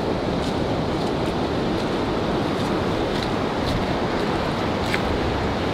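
Steady rushing noise of breaking surf, with a few faint ticks scattered through it.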